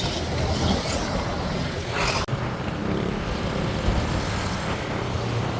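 Steady engine and road noise of a motor vehicle travelling on a road, with a brief dropout a little over two seconds in.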